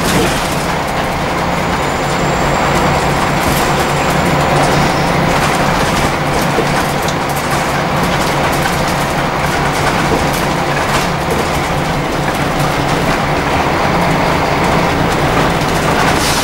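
Scania L94UB single-deck bus on the move, heard from inside the passenger saloon. Its diesel engine makes a steady low drone under tyre and road noise, with a few short knocks from the body.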